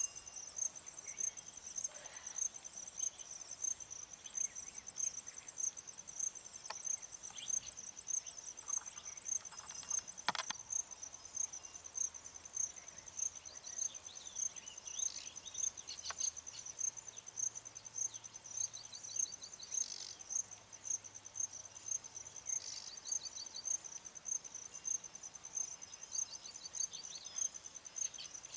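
Insect chirping: a steady high-pitched pulse about twice a second, cricket-like, with faint short bird chatters now and then and a single click about ten seconds in.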